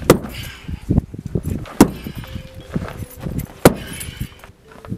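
A long-handled hand tool struck hard against the ground three times, about two seconds apart, with clinking and gritty rattling between the blows.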